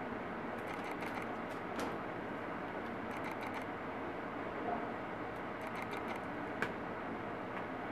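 Small plastic clicks and ticks as a Toshiba laptop's plastic palm rest is pried up and lifted off by hand, coming in scattered clusters with one sharper click near the end, over a steady hiss.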